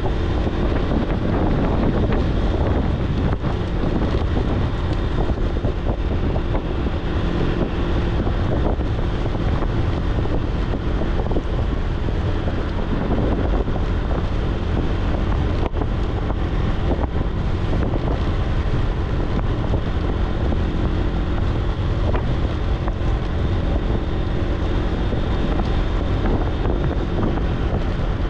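Wind buffeting the microphone of a moving motorbike, a steady rushing noise with a low, even engine hum underneath.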